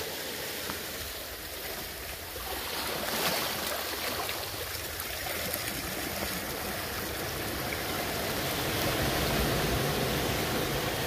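Seawater washing and rushing over shore rocks: a steady noise that swells a little about three seconds in and again near the end.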